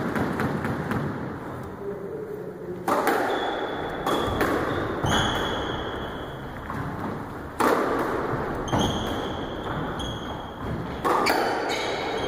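Squash rally: the ball cracks off rackets and walls about every one to two seconds, each hit ringing in the court, with rubber-soled court shoes squeaking on the wooden floor between shots.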